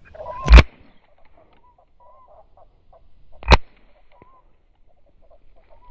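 Two shotgun shots about three seconds apart, the first the louder, with faint waterfowl calls in between.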